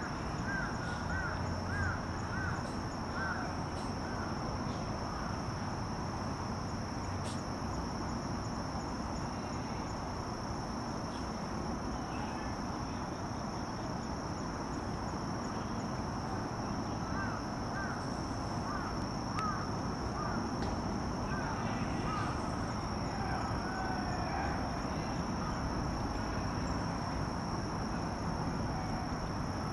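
Outdoor ambience of insects droning steadily at a high pitch, with runs of short bird chirps near the start and again in the second half.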